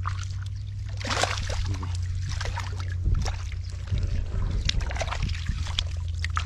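Hands splashing and sloshing through shallow muddy water and mud, groping for catfish, in irregular bursts over a steady low hum.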